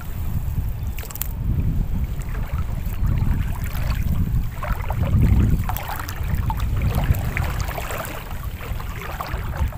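Wind buffeting the microphone in a low rumble that swells and eases, over water sloshing and dripping around people wading waist-deep.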